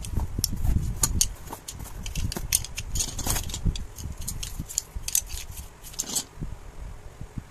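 Slotted wooden sticks of a connection toy set clacking and knocking against one another as they are handled, sorted and set down by hand: an irregular run of short wooden clicks.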